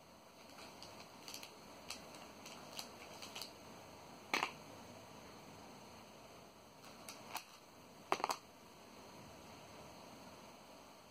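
Small plastic star stickers being handled and set down one by one on cardboard, with light clicks and taps and a faint rustle of the cellophane bag. Two louder knocks come about four seconds in and again around eight seconds in.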